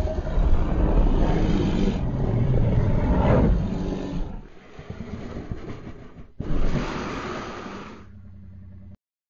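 Brown bear growling: a long, rough, low growl over the first four seconds, then a shorter one about six and a half seconds in, cutting off suddenly near the end.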